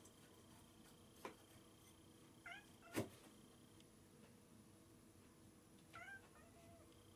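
A cat gives short, quiet meows, a few about two and a half seconds in and again near six seconds. A sharp knock, the loudest sound, comes about three seconds in, with a fainter click just over a second in.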